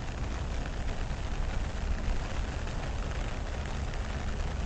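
Steady rain falling on grass and lake water: an even hiss with a low rumble underneath.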